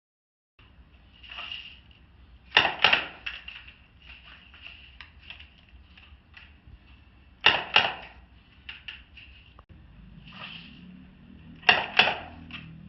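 Revolver fired in quick pairs of shots (double taps), three pairs about five seconds apart, with lighter clicks of the gun's action between them.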